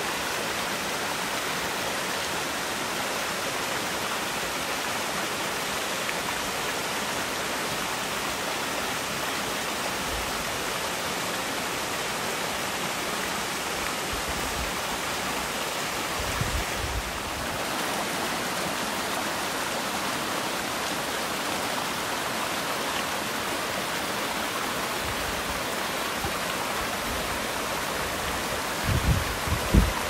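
Two-tier waterfall, about 7 m high, pouring steadily into its pool: a constant rush of falling water. A few low rumbles come in near the end.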